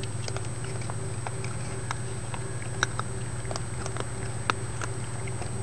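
Raccoons eating cereal from a plastic tub of water: scattered small sharp clicks and crunches, the two loudest about halfway and three quarters through, over a steady low hum.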